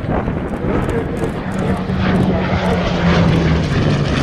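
Hawker Hurricane Mk.I's Rolls-Royce Merlin V12 engine and propeller in a low flypast. The engine note is steady, then drops in pitch near the end as the fighter goes by.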